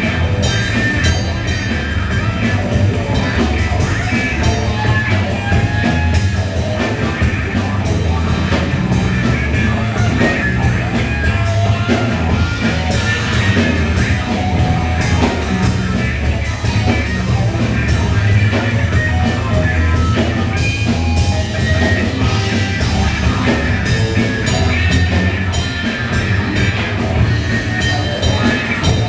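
Progressive rock band playing, with drum kit and guitar.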